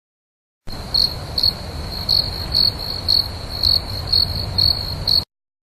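Crickets chirping: a steady high trill with louder chirps about twice a second, over a low background rumble. It starts and cuts off abruptly.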